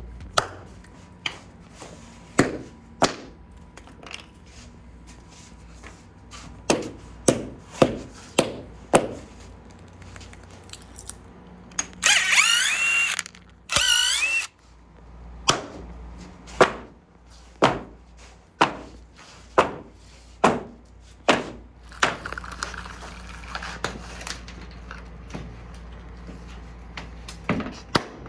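Repeated sharp knocks of a plastic-faced mallet striking the tape-covered melamine walls of an epoxy casting mold, irregularly about once a second, knocking the mold loose from the cured slab. Near the middle a cordless impact driver runs twice, about a second each time, backing out the mold's screws.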